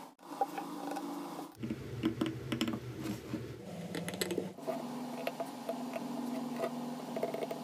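Light scratching and small clicks of a steel needle tool scribing lines into a stone plaque, over a steady low hum; the sound drops out abruptly a few times.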